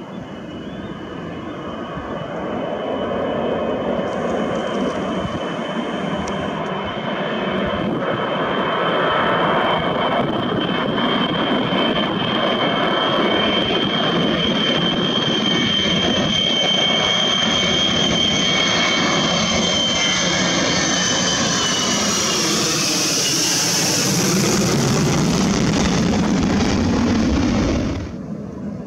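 Four Soloviev D-30KP turbofans of an Ilyushin Il-76 at takeoff power as it lifts off and climbs past. A loud jet roar with a high fan whine grows louder over the first several seconds, then the whine drops in pitch as the aircraft goes by. The sound cuts off suddenly near the end.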